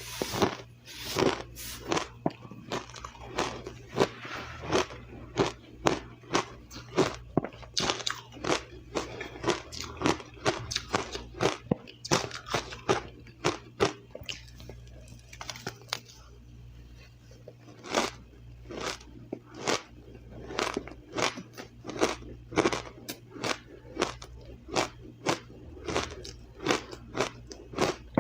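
Ice being bitten and chewed close to the microphone: crisp crunches, several a second, with a short lull about halfway through.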